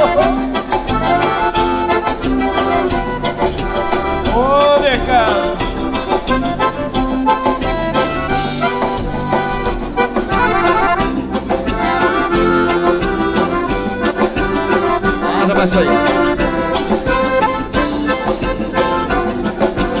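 Live gaúcho dance music in an instrumental break: two piano accordions carry the melody over electric guitar, bass and drum kit, with a steady beat.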